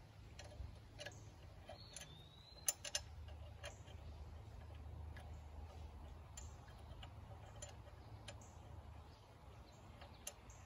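Scattered light clicks and ticks of metal parts and tools being handled, two a little louder about three seconds in, over a low steady hum.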